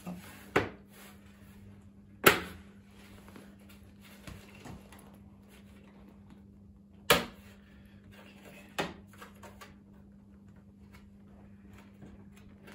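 Plastic top-box mounting plate on a motorcycle rear rack knocking and clicking as it is pressed and worked into place by hand: four sharp clunks, the loudest about two and seven seconds in, with lighter clicks between, over a steady low hum.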